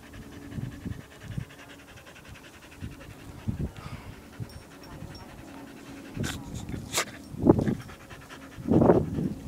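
A dog panting in short, quick breaths, with a few louder sounds near the end.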